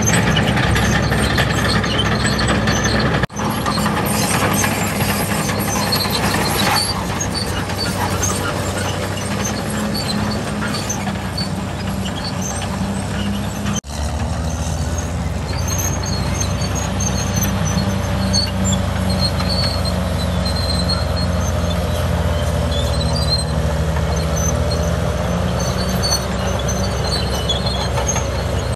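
Heavy tracked earthmoving machines, a Komatsu PC450 excavator and a Cat bulldozer, working with their diesel engines running steadily. Short, high-pitched squeaks come and go over the engine sound.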